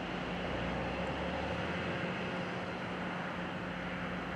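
Steady distant road traffic: an even wash of noise with a low, constant hum.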